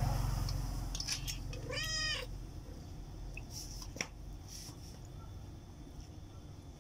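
A cat meows once, a short call about two seconds in. A single sharp click comes near four seconds.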